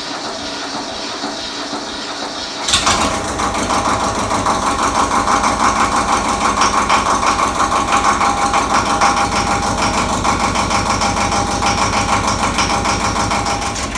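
Ford 1700 tractor's three-cylinder diesel cranking on the starter, then catching with a sudden jump in loudness about three seconds in. It then runs with an even, pulsing diesel beat, while the hydraulics lower the front loader.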